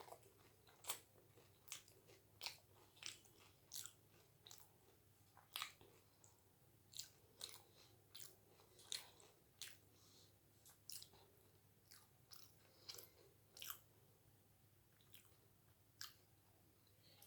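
Close-up chewing of doi fuchka, crisp puffed fuchka shells with yogurt and potato filling. Sharp, irregular crunches and wet mouth clicks come about once or twice a second throughout.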